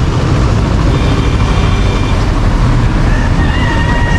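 Busy street traffic noise: motor vehicles running close by, with a couple of held higher tones rising above the din about a second in and again near the end.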